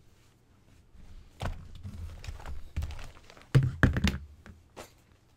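Markers and pencils in a fabric pencil roll being gathered up and moved off a desk: a string of knocks and clatters with some rustling, the loudest a quick cluster of knocks a little past halfway.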